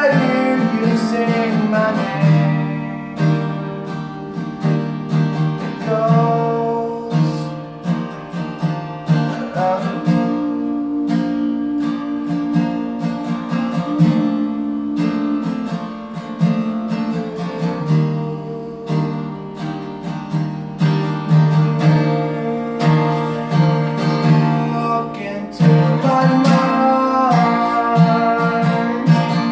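Acoustic guitar strummed steadily through a song. A man's voice sings along at the start and again near the end.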